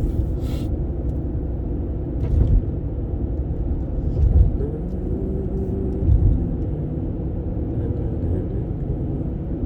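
Car road noise heard from inside the cabin: a steady low rumble of engine and tyres, with a few heavier low thumps about two, four and six seconds in.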